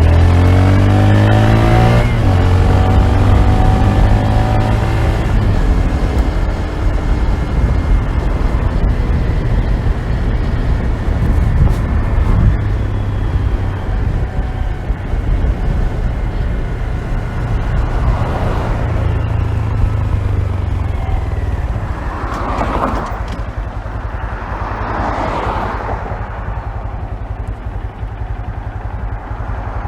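Honda Grom's 125 cc single-cylinder four-stroke engine running, muffled from inside a pocket. The revs rise and fall in the first few seconds, then settle into steadier running, with a rushing noise swelling up several times in the second half.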